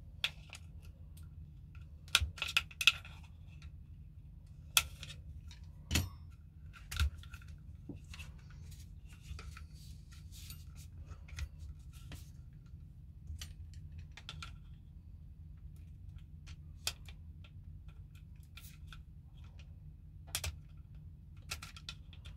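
Scattered small clicks and taps of hard plastic and metal parts being handled, as the pistol grip of an ASG Scorpion Evo airsoft gun is worked loose and its motor wires are eased out through it.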